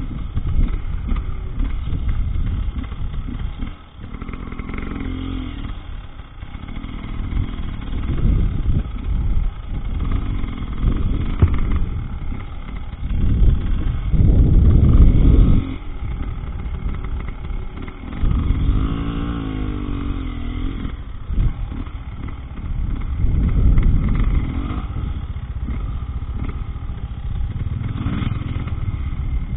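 Husqvarna TE300 two-stroke enduro motorcycle engine running under a riding load off-road, the throttle opening and closing, with louder surges of revving about halfway through.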